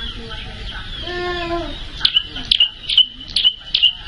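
Prenjak (prinia) calling: a run of sharp, loud, high chips, about two a second, from about two seconds in. A lower drawn-out sound about a second in.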